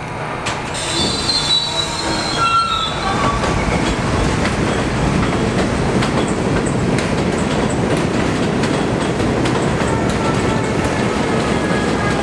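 NYC Subway R68A train running past: a steady rumble of steel wheels on rail that builds over the first couple of seconds, with wheel squeal early on and again faintly near the end.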